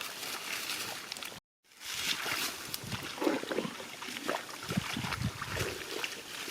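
Shallow water splashing and sloshing in irregular bursts, as when someone wades and gropes through shallow water by hand. It cuts out completely for a moment about a second and a half in.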